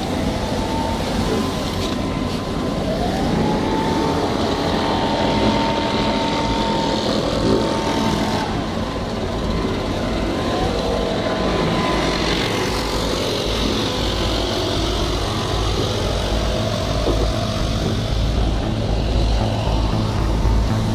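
Petrol leaf blower running, its whine rising about three seconds in and holding steady for several seconds, over a steady rumble of vehicle engines.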